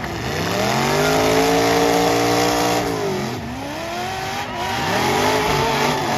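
Demolition derby car engine revving hard: it climbs, holds high for a couple of seconds, drops off, then revs up and falls again, with another rise starting near the end.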